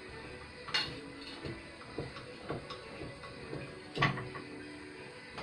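Steel pieces being handled and set down: a few knocks and clanks, the loudest about a second in and about four seconds in, with lighter taps between.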